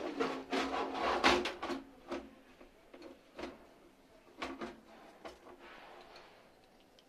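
Clicking and rattling of hard parts being handled: a dense run of knocks in the first two seconds, then a few separate clicks.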